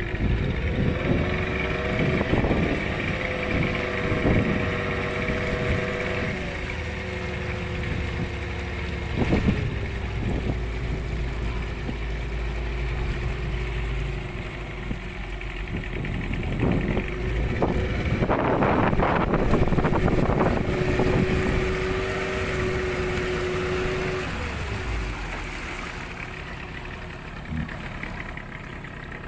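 A small motorboat's engine running steadily while under way, with wind buffeting the microphone.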